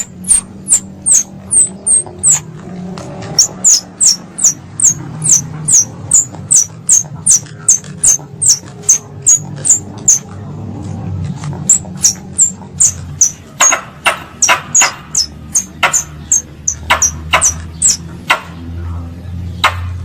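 Squirrel lure call (suara pikat tupai): a rapid series of sharp, high chirps, each falling in pitch, about two a second, pausing briefly about halfway, over a low hum.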